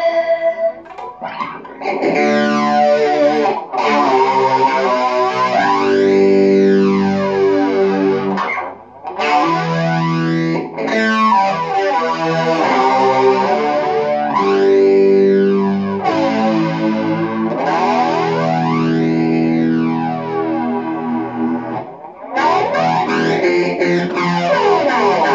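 Electric guitar through effects pedals, with distortion, playing held chords. The tone carries a slow sweep that rises and falls every few seconds, and there are short breaks between phrases about nine seconds in and again near the end.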